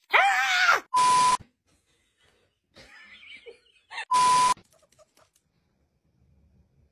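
Two edited-in beep sound effects about three seconds apart, each a half-second steady tone mixed with hiss. Just before the first, a short wavering high-pitched cry.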